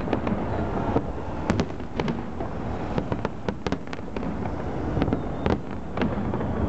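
Large aerial fireworks display: shells bursting overhead in quick, irregular succession. Many sharp bangs sound over a continuous low rumble.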